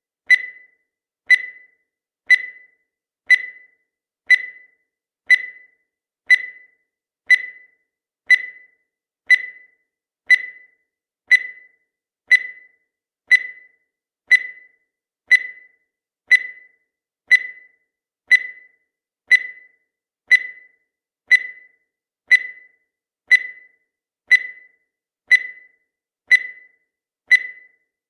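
Countdown timer sound effect: a short, high beep once every second, each one dying away quickly.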